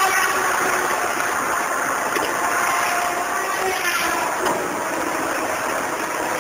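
Caterpillar 522 tracked feller buncher working, a steady heavy-machine din of engine and hydraulics mixed with the rushing noise of its disc-saw felling head cutting a tree.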